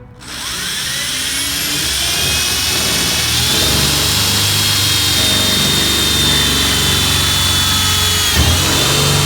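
Power drill starting up with a rising whine, then running steadily as the bit bores into the steel bed of a Nissan D21 pickup, with a brief drop in speed near the end.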